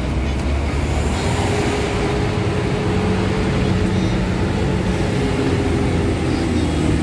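Truck engine running as it drives slowly, heard from inside the cab, with a steady drone setting in about a second in.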